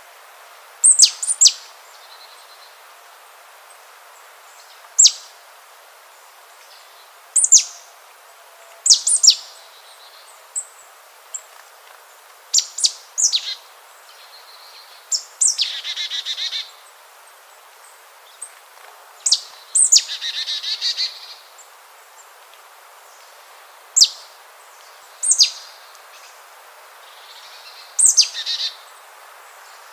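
A bird calling with sharp, high whistles that fall in pitch, one or two every couple of seconds, with two longer buzzy trills near the middle, over a steady background hiss.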